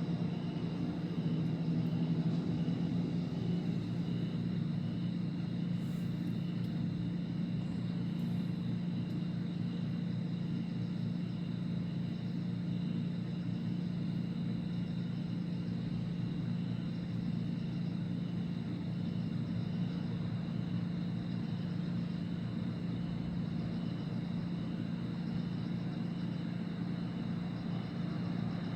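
A steady low mechanical hum that holds unchanged throughout, like a motor or engine running.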